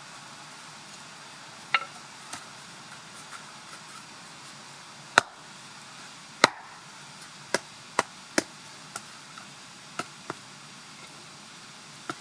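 Hatchet strikes chopping into forest soil and knocking a split wooden board into the slope to form a step: about ten sharp knocks at uneven intervals, the loudest two about five and six and a half seconds in.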